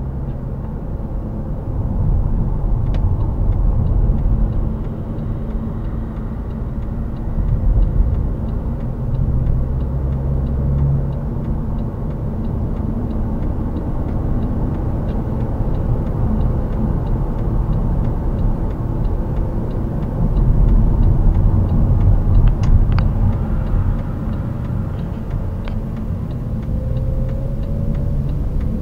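Low road and engine rumble inside a Mercedes-Benz W212 E-Class cabin while driving, swelling louder a few times, with a few faint clicks.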